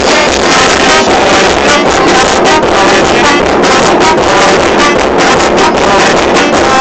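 Brass band playing: trumpets, trombones and saxophone over snare drum, bass drum and clash cymbals, with a steady drum beat.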